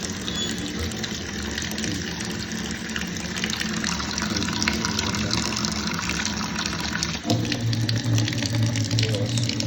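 Water running steadily from a kitchen sink tap into the basin. About seven seconds in the sound shifts and a low hum joins the flow.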